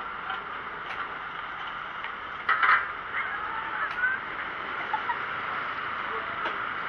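Steady street noise around road patching work, with one short, loud scrape about two and a half seconds in and a few faint short squeaks after it.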